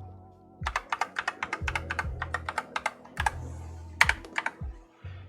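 Typing on an AKKO Tokyo World Tour 3087 mechanical keyboard with cream yellow switches: a fast run of key clacks starting under a second in, thinning to a few single presses near the end.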